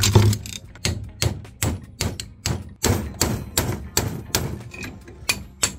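Rapid hammer blows on steel, about four a second, knocking apart a snowmobile Diamond Drive's planetary gear assembly to free a pickup gear seized into the orbital gears after the drive was run dry of fluid.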